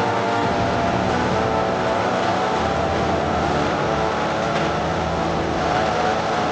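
Stihl 070 chainsaw's two-stroke engine running at high revs, its pitch wavering slightly.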